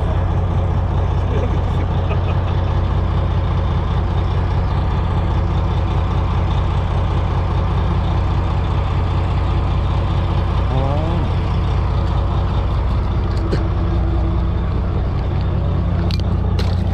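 Fishing boat's engine running with a steady low drone, and a brief wavering whine about eleven seconds in.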